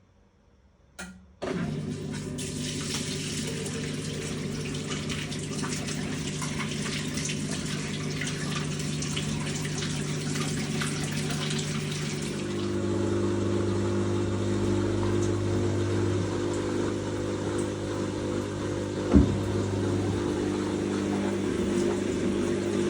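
Teco top-load washing machine's drain pump clicks on about a second in and runs with a steady hum over the sound of water being pumped out. About halfway through, the hum shifts to a lower, stronger pitch. There is a sharp click near the end.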